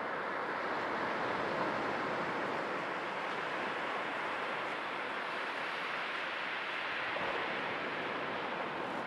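Sea waves washing in as a steady surf, a continuous rushing noise that swells slightly a couple of times.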